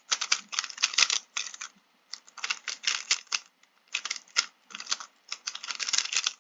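Plastic 3x3 puzzle cube being turned quickly by hand, its layers clacking in rapid runs of clicks with brief pauses, as the cube is scrambled for the next solve.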